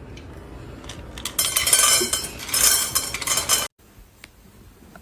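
A rapid run of clattering, clinking knocks of hard objects, like dishes or cutlery being knocked about. It lasts about two seconds and stops abruptly.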